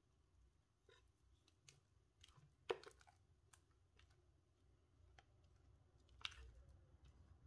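Faint wet squishes and soft clicks of thick cake batter pouring from a bowl into a glass baking dish. The sharpest is about two and a half seconds in and another comes after six seconds.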